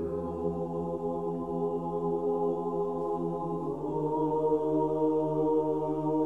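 Sustained, steady music drone: a held chord with no breaks, shifting to a slightly lower chord a little under four seconds in.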